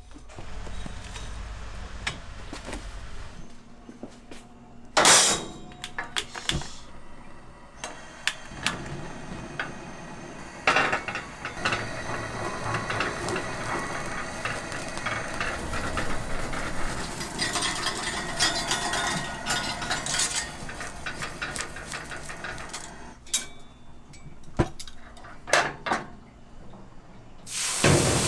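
Beef sizzling on a hot cast-iron grill plate, a dense crackling hiss that builds about eight seconds in and fades near the end. Sharp metal clinks and knocks of utensils and dishes come throughout.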